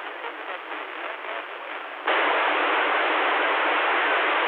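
CB radio receiver static through its speaker: a faint, fluttering hiss for about two seconds, then the hiss jumps suddenly louder and holds steady, the sign of a station keying up its carrier on the channel.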